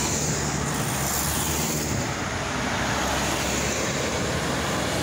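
Road traffic on a multi-lane street: cars passing close by, tyre and engine noise steady, with a tanker semi truck's diesel engine running as it comes through the intersection.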